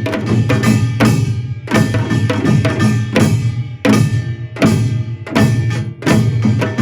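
Korean pungmul percussion ensemble playing seated (anjeunban style): bright metal gong clangs and drum strokes in a driving rhythm over a sustained low ringing.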